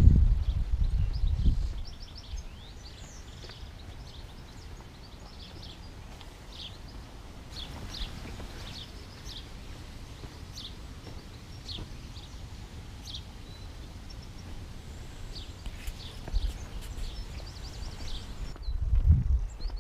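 Small birds chirping, a string of short, high, falling calls repeated every second or so. Low rumbling bursts come in the first second and a half and again near the end.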